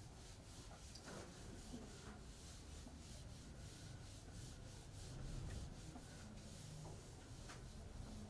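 Handheld whiteboard eraser wiping a whiteboard in quick back-and-forth strokes: a faint, rhythmic rubbing swish, a few strokes a second.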